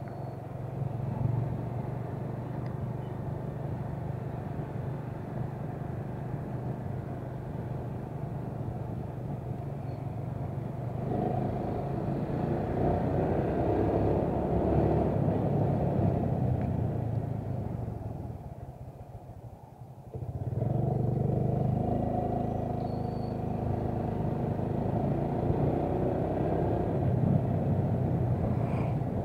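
Motorcycle engine running steadily while riding, with wind and road noise on the rider's camera. The sound grows louder about a third of the way in, drops away briefly about two-thirds through, and comes back suddenly.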